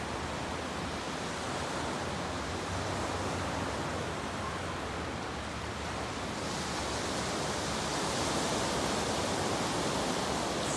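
Steady rush of sea waves breaking on a sand beach, with a low wind rumble on the microphone; the hiss grows brighter and a little louder about two-thirds of the way in.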